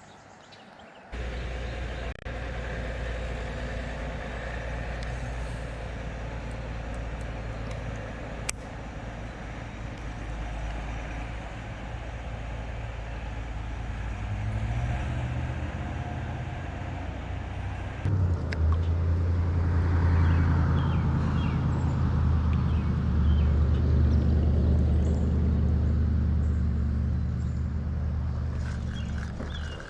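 A steady low engine hum that starts abruptly about a second in and grows louder about 18 seconds in.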